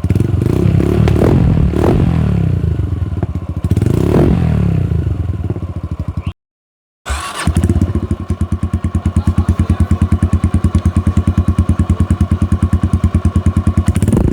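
Motorcycle with an aftermarket exhaust being revved in several short blips. After a brief break in the sound it idles with a steady, even, rapid beat.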